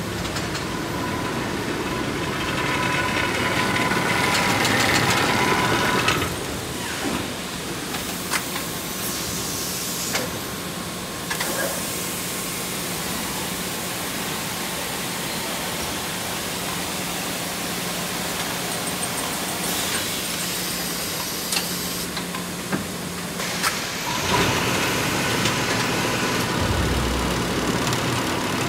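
Automated paper-cutting line, a Perfecta 168 guillotine with a Baumann BASA 7 handling system, running: a steady machine hum with scattered sharp knocks and clunks. It grows louder and busier in the first few seconds and again near the end.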